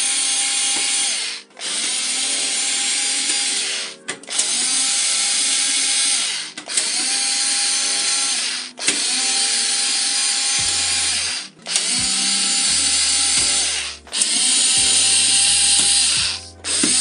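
A cordless drill-driver runs in repeated spells of about two seconds, seven or so, with short pauses between them. Its motor pitch rises as each spell starts. It is driving the screws of the fan finger guards on an Antminer T15 ASIC miner.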